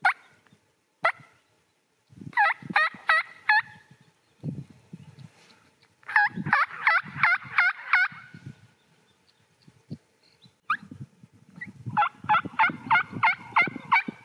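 Turkey yelping: three runs of quick, evenly spaced yelps, the runs getting longer each time. Two sharp clicks come just before, at the start and about a second in.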